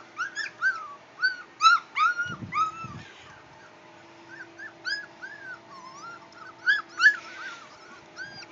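Young puppies whimpering and yipping: a rapid string of short, high, squeaky cries, each rising then falling in pitch, several a second. They are busiest in the first three seconds and again about seven seconds in, with two low thuds between two and three seconds in.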